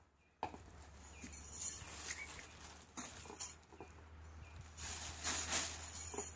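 Faint rustling of a thin plastic carry bag and handling of fish in a plastic bowl, with scattered small clicks and knocks, over a steady low hum.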